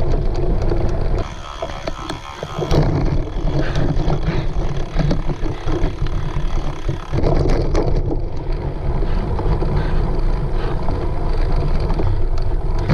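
Wind rushing over the microphone of a camera riding along on a cyclocross bike, with scattered rattles and clicks from the bike; the wind drops briefly a little over a second in.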